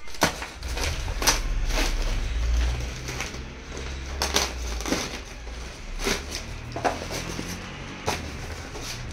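Plastic wrapping being torn and crumpled by hand as a string-tied parcel is opened, with sharp crackles about once a second. A low rumble runs underneath in the first half.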